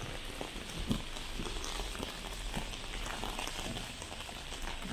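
Heavy rain falling, with a steady hiss and many close drops ticking on nearby surfaces; one sharper tap stands out about a second in.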